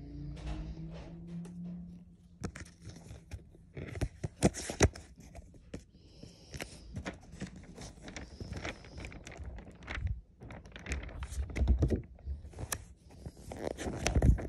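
Glossy paper of a Panini sticker album and sticker backing being handled: crackly rustling and crinkling with sharp clicks and taps, and a page being turned near the end. A low hum runs through the first two seconds.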